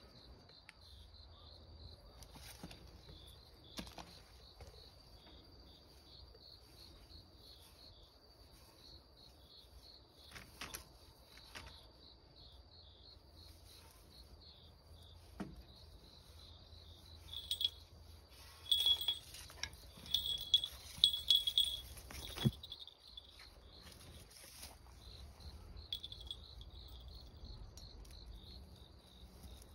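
Insects chirping in a steady high trill, with a nearer insect calling louder in short pulses from about two-thirds of the way through. A few light clicks and rustles come and go.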